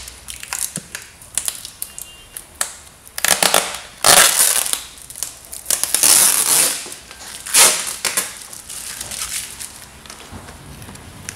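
Sellotape being peeled off a cardboard carton in about half a dozen noisy rips, the loudest in the middle, with quieter rustling of the cardboard between them.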